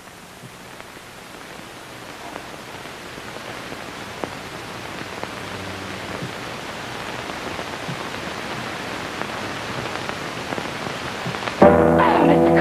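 Steady hiss of an old film soundtrack, slowly growing louder, with a few faint clicks. Near the end, music comes in on a held chord.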